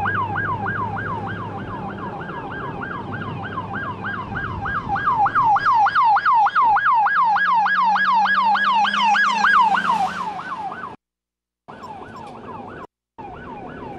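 Electronic siren yelping: a rapid up-and-down wail repeating three to four times a second. It grows louder partway through, then the sound cuts out in short gaps near the end.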